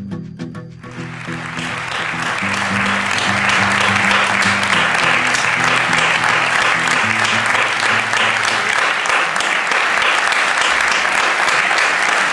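Audience applauding, starting about a second in and quickly building to steady, loud clapping, over low instrumental music notes that fade away near the three-quarter mark.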